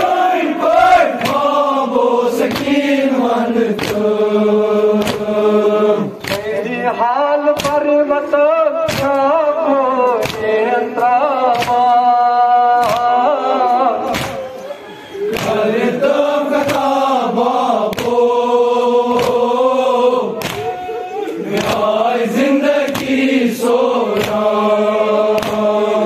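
A large group of men chanting a noha, a Muharram lament, in unison in long drawn-out lines, with sharp rhythmic slaps of matam (chest-beating by hand) a little faster than one a second.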